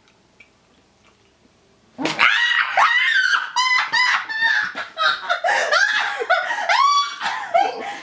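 About two seconds of near silence, then loud, high-pitched screams and squeals mixed with laughter: a reaction of disgust to a foul-tasting jelly bean.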